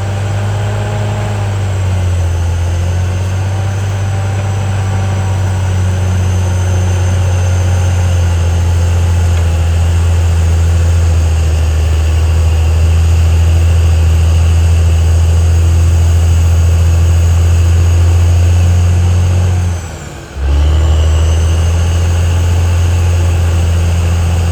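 CAT D6R XL bulldozer's diesel engine running steadily under a deep hum, with a faint high whine above it. The sound drops out for a moment near the end, then carries on.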